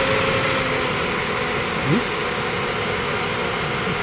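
Toyota Vios 2NZ-FE four-cylinder engine idling roughly and unevenly, with a short rising note about two seconds in. The rough idle comes from a vacuum leak at a hardened PCV valve hose on the intake manifold.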